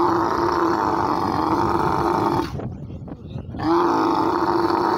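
Bull dromedary camel in rut calling with its dulla, the inflated soft palate, pushed out of its mouth. It gives two long, steady, throaty calls, each about two seconds, with a short pause between them.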